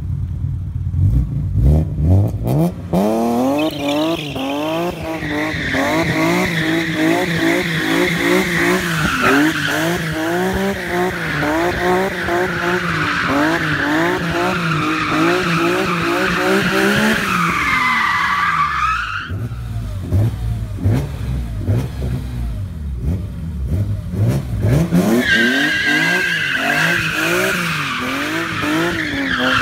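BMW M3 E36's straight-six engine revving hard and over and over while drifting, with the tyres squealing through long slides. The squeal fades out a little past halfway and the engine runs lower for a few seconds. Then the revs climb again and the tyres squeal once more near the end.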